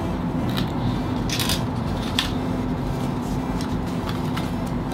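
Cardboard and plastic packaging being handled: light clicks and rustles as pieces are set down and picked up, the clearest about a second and a half and two seconds in, over a steady low hum.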